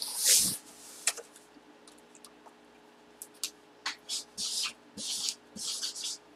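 A cardboard box is shifted at the start. Later comes a run of about five short scratchy strokes: a felt-tip marker writing on the cardboard box.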